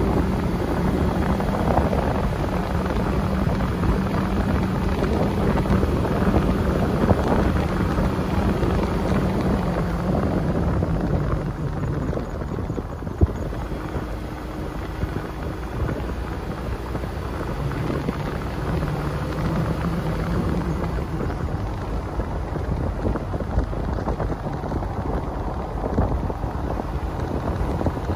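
A car driving along a paved road, heard from inside: steady rumble of tyres and engine with a low engine drone that fades out about halfway through and returns later. A single sharp click sounds about halfway through.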